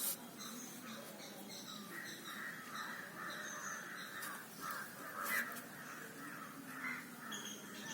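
Faint bird calls repeating through the background.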